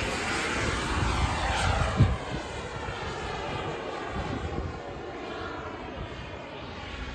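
Radio-controlled model jet fighter flying past, its jet engine's whine and rush falling in pitch and fading as it moves away. A brief thump about two seconds in.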